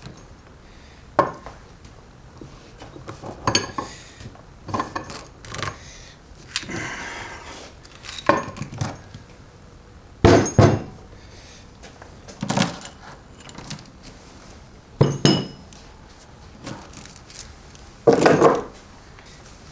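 Metal parts and hand tools clanking and clinking as an NP271F transfer case is taken apart: a dozen or so separate knocks and clinks at irregular intervals, with a short rattling scrape about seven seconds in and the loudest clanks about ten and eighteen seconds in.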